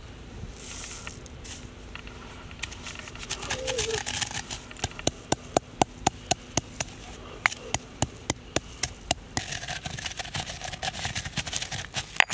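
Stone pestle pounding whole black peppercorns in a stone mortar, crushing them to powder: sharp knocks, about three a second, starting about four seconds in, after a stretch of rustling.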